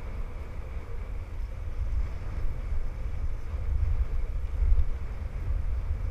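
Dog sled running over packed snow: a steady, uneven low rumble from the moving sled, with wind buffeting the microphone.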